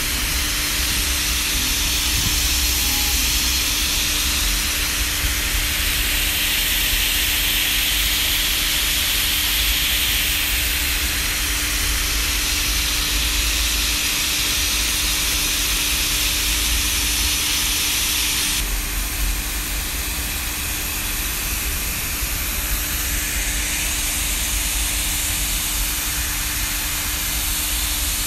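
Steady rushing hiss over a flickering low rumble, with a constant machine hum underneath. The hiss changes abruptly about two-thirds of the way through.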